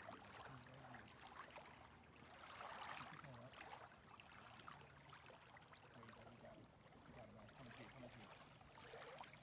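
Near silence: faint lapping of small lake waves and soft wind noise.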